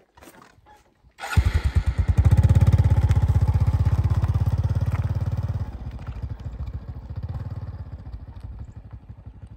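A small motorcycle engine starts abruptly about a second in and runs with rapid, even exhaust pulses as it pulls away, then drops in level about halfway through and fades as the bike rides off.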